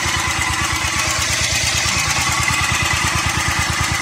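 Briggs & Stratton single-cylinder small engine running steadily with an even, regular firing beat, on a newly fitted replacement carburettor.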